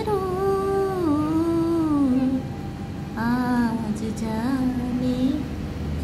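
A voice humming a slow tune in long held notes that glide up and down, with a short break near the middle.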